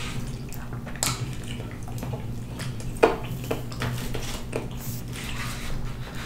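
Close-miked eating and food handling: rotisserie chicken being pulled apart by hand in a plastic takeout container, with soft wet squishes and a couple of sharp clicks about one and three seconds in, over a steady low hum.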